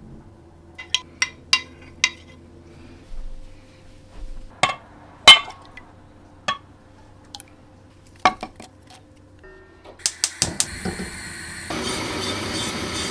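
Metal spoon clinking and scraping against a glass food container while lifting hardened fat off a jellied chicken broth: a series of sharp clinks, the loudest about five seconds in. Near the end a steady hiss sets in.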